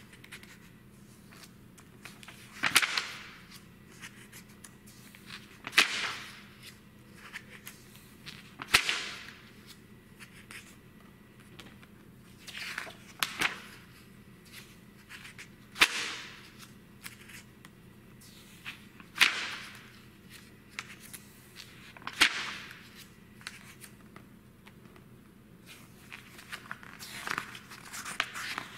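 Pages of a thick print magazine being turned by hand, one sharp paper swish and flap roughly every three seconds.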